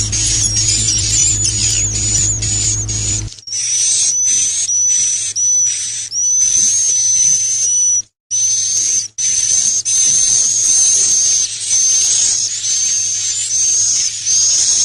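A songbird known locally as 'akau' singing a high, thin, continuous whistled song with fast chattering notes. The recording cuts off abruptly about three seconds in and again about eight seconds in.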